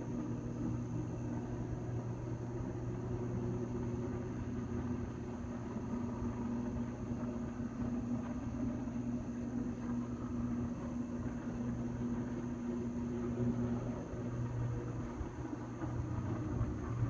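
Distant electrical substation fire: a steady low rumble with a steady low hum in it, from the burning substation's ongoing electrical arc. The higher part of the hum fades out near the end.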